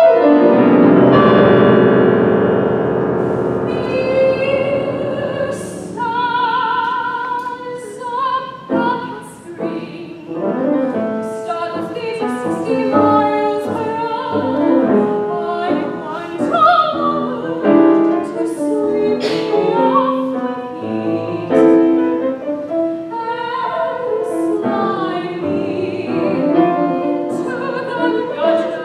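Soprano singing in operatic style with grand piano accompaniment. A loud piano chord opens and rings on, and the voice enters about six seconds in, with vibrato.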